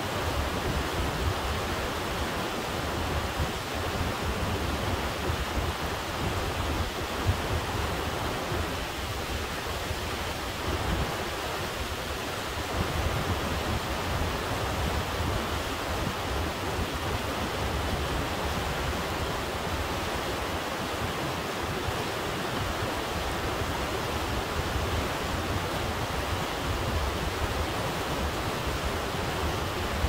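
Glacier-fed Kennicott River rushing steadily, a constant broad roar of water with a deep low rumble underneath.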